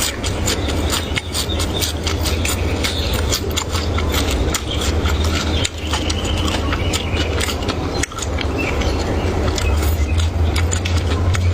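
Eating sounds: many quick crunches and clicks over a steady low hum.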